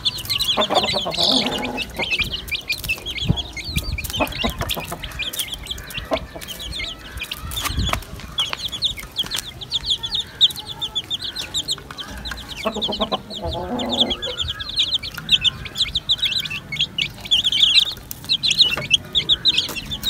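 A flock of young chicks peeping without pause in short, high chirps. A hen clucks briefly about a second in and again around thirteen seconds in, and scattered sharp taps sound throughout.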